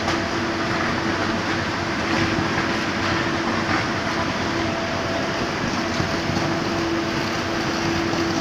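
Steady drone of factory machinery: a continuous rushing noise with a hum held at one pitch.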